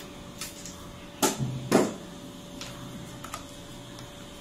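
Two sharp knocks about half a second apart, with a few lighter clicks around them, as tools are handled and set down.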